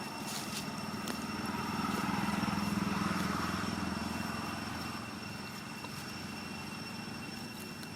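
A motor vehicle engine passing: a low drone swells to its loudest about three seconds in and fades away by about five seconds.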